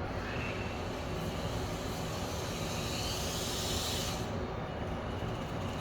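Wltoys K989 1/28 RC car's small brushed motor and four-wheel drivetrain whirring as it drives, with a hiss that swells for a couple of seconds in the middle and then falls away.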